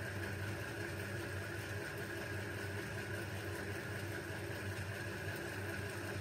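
A steady, even machine hum with no clear clicks or knocks.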